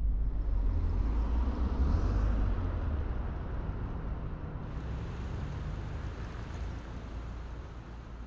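Road traffic: a vehicle passing on the street with a low rumbling noise. It is loudest about two seconds in, then slowly fades away.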